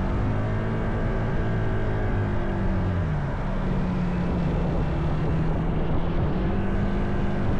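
Single-cylinder Honda ADV160 scooter engine running while riding, its note dropping about two to three seconds in as the throttle eases, then steadying and picking up again, over constant road and wind noise.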